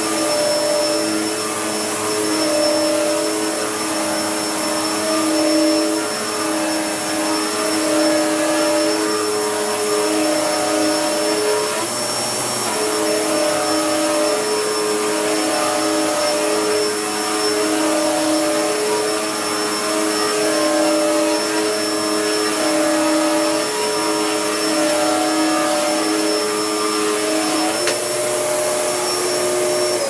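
Hoover Purepower PU2120 upright vacuum cleaner running on carpet, its 2100-watt motor and brush roll very loud: a steady hum with a thin high whistle over it. The pitch shifts slightly a couple of times as the load on the machine changes.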